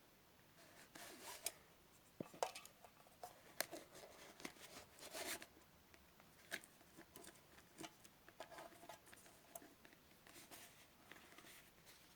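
Faint handling noises: scattered light clicks and short rustles of small objects being moved about, busiest in the first half.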